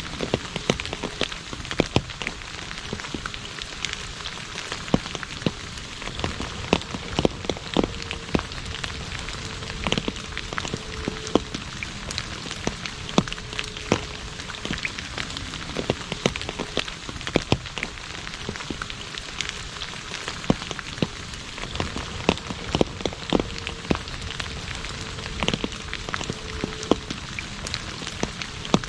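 Rain falling on an asphalt road: a steady hiss with frequent sharp splats of single drops scattered throughout.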